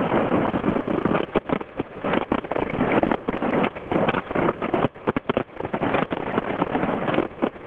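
Aerial fireworks going off in quick succession: a dense, loud run of bangs and crackles with no let-up.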